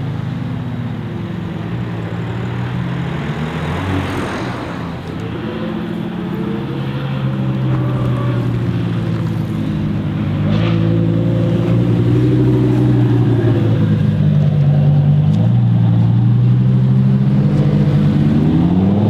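Audi R8 V10 Performance's 5.2-litre V10 on an aftermarket exhaust, running at low revs with its note stepping up and down and growing louder as it comes closer. Near the end the pitch starts to climb as it revs up.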